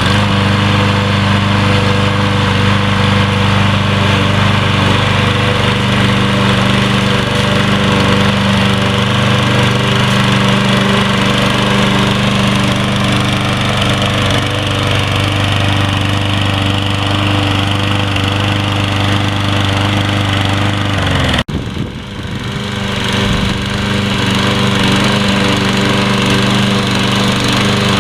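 Troy-Bilt TB230 walk-behind lawn mower's Briggs & Stratton engine running steadily. About twenty seconds in its pitch sags a little and the sound breaks off for an instant, then it runs on steadily.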